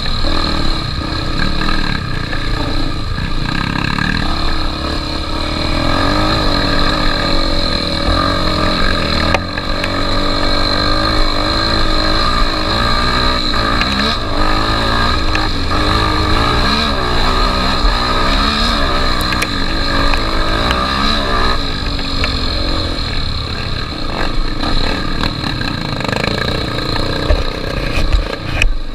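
Honda XR 250 Tornado's single-cylinder four-stroke engine running under way, its pitch rising and falling again and again as the throttle is opened and closed.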